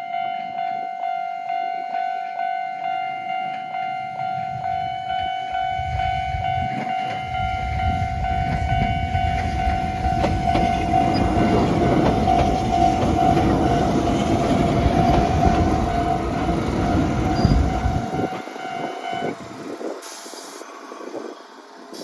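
Japanese level-crossing alarm bell ringing at a steady beat of about two and a half strikes a second while a two-car Konan Railway Owani Line electric train passes. The train's rumble and wheel clatter build up, peak, and fade away. The bell stops about nineteen seconds in.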